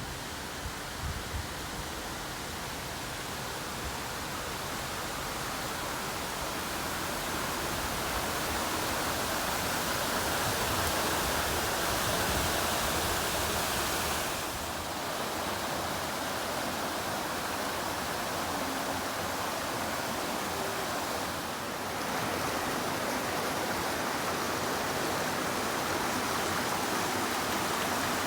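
Rushing water of a fast mountain stream: a steady, even roar of water that dips slightly twice.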